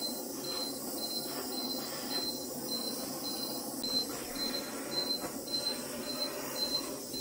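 Butane kitchen blowtorch running with a steady hiss as it browns meringue, over a phone's timer alarm beeping about twice a second at a high pitch, an expired timer left ringing.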